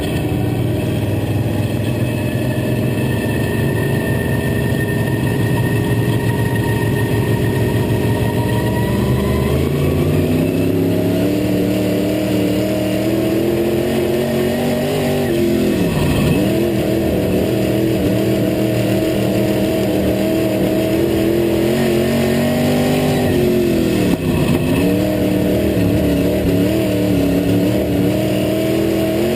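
Dirt-track race car's engine heard from inside the cockpit, running steadily at low revs for about ten seconds, then speeding up. The revs drop sharply twice, about halfway through and near the end, and climb again each time.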